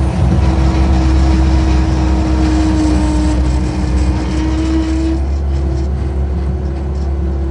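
A motor vehicle's engine running steadily with a deep rumble and a constant hum; the hum eases slightly about five seconds in.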